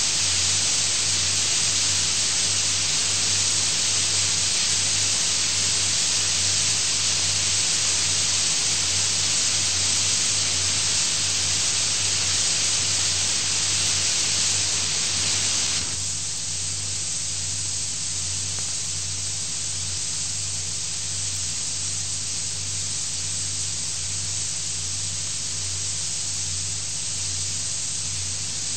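Steady loud hiss of an audio recording's noise floor, with a low electrical hum underneath. About sixteen seconds in, the hiss drops to a quieter, duller level.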